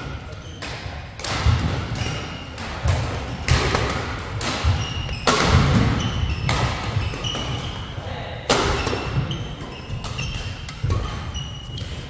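Badminton doubles rally: sharp cracks of rackets striking the shuttlecock every second or so, with short high shoe squeaks and feet thudding on the wooden court floor between them.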